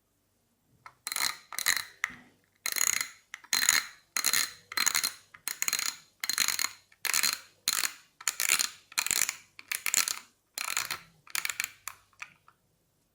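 Shimano Activecast 1080 spinning reel's mechanism being worked by hand, giving a run of short mechanical bursts, about one and a half a second, that start about a second in and stop near the end.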